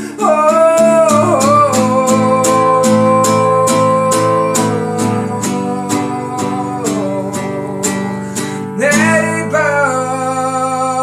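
A man singing long held notes over steady guitar strumming, with a new sung phrase starting near the end.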